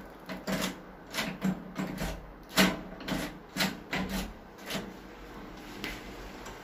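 Round-knob door lockset turned back and forth by hand: a dozen or so sharp, irregular clicks and rattles as the newly replaced spring latch bolt draws in and snaps back out, thinning out near the end.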